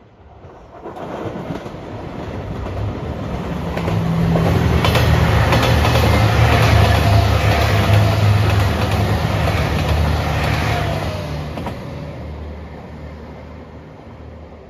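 A JR Shikoku 2700 series diesel express train passing close by. Its diesel engines and wheels swell in from about a second in, with a few wheel clicks at the rail joints, are loudest in the middle, then fade as the train moves away.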